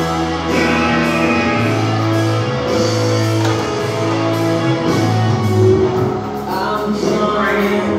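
Background music with long held bass notes.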